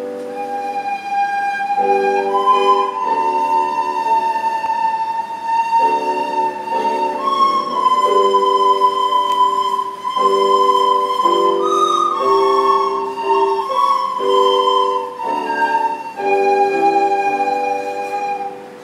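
A group of children playing a slow melody in unison on soprano recorders, in long held notes, over a chord accompaniment lower down; the music stops near the end.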